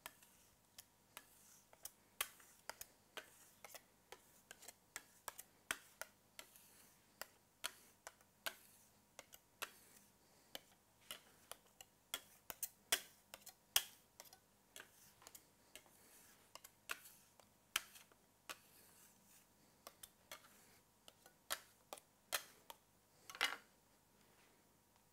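Metal palette knife and scraper tapping and scraping on a granite worktop as melted chocolate is worked back and forth to temper it by tabling: irregular sharp clicks, two or three a second, with a longer scrape near the end.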